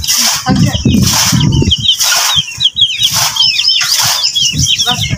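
Hand-cranked chaff cutter chopping green fodder, a swishing chop about once a second as its flywheel is turned. Small birds chirp repeatedly over it from about a second in.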